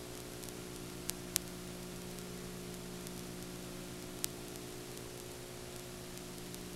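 Steady electrical hum and hiss of an analog videotape recording, with no programme sound. Three brief clicks come about one second in, a moment later, and about four seconds in.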